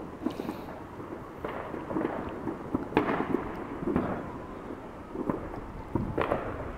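Neighbourhood Fourth of July fireworks and firecrackers going off out of sight: an irregular series of overlapping bangs and pops over a continuous rumble, the loudest bangs about three seconds in, again a second later, and near the end.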